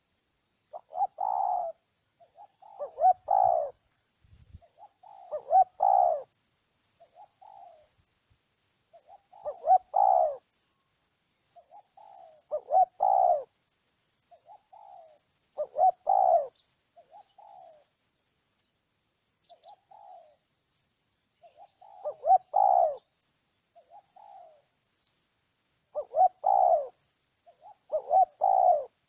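Spotted dove cooing: a loud low coo phrase every few seconds, with softer coos between. A faint high chirp repeats steadily in the background.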